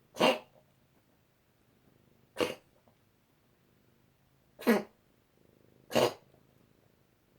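A pet coughing in a prolonged coughing fit: four short, sharp coughs a second or two apart.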